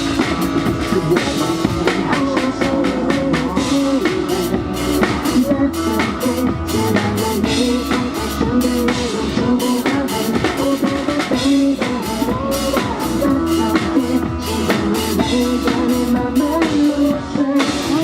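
Live band music: a drum kit with bass drum and snare keeping a steady beat under the other instruments.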